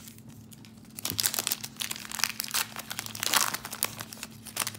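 A trading card pack's wrapper being torn open and crumpled in the hands, a dense run of crackling and rustling.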